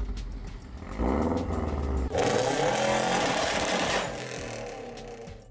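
Turbocharged Subaru Legacy engine running, with a loud hiss starting about two seconds in and lasting nearly two seconds, then dying away.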